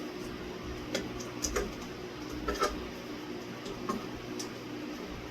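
Scattered light clicks and ticks, about seven over several seconds, from a screwdriver and screws being worked during ceiling fan assembly, over a steady low hum.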